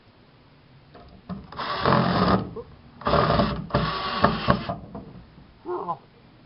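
Cordless drill-driver driving screws through a metal latch into the wooden coop door: three short runs of the motor, about two seconds in and then twice close together a second later.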